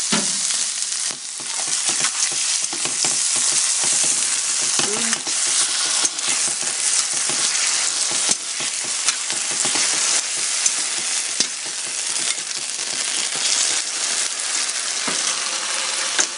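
Bean sprouts and green onions sizzling steadily in a hot oiled frying pan with sauce, stirred and tossed with a spatula that scrapes and clicks against the pan now and then.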